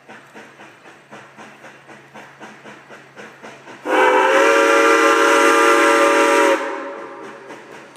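Steam whistle of Huckleberry Railroad's steam locomotive No. 464 blowing one long blast of about two and a half seconds, a chord of several tones, starting about four seconds in. Under it runs a steady beat of about three pulses a second from the departing train.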